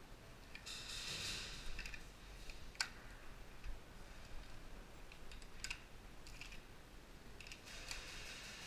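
Scattered sharp clicks and short rustles from a player moving with gear, with two louder ticks about three and six seconds in.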